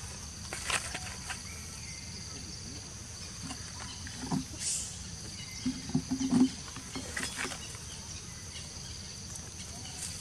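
Steady, high-pitched drone of insects, with a few brief, louder low-pitched sounds around the middle.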